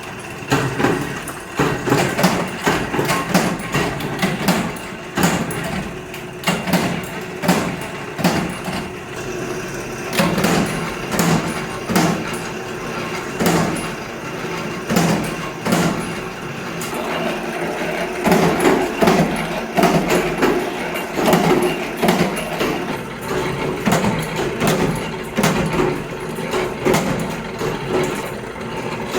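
Irregular metal knocks and clanks, one to three a second, over a steady machine drone, from scrap compressor metal being worked.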